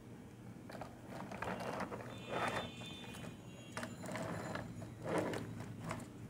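A small plastic toy vehicle being handled and set down: a series of faint plastic scrapes and clicks, several short bursts a second or so apart.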